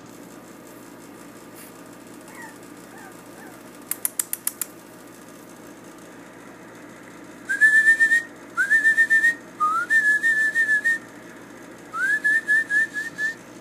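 Whistling in four short loud phrases, each a quick upward slide into a held or stuttering note, over the second half. Before that come a few faint puppy whimpers and a quick run of five sharp clicks.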